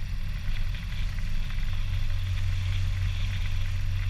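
Motor glider's engine running at low power while the aircraft taxis, a steady low drone heard from inside the cockpit.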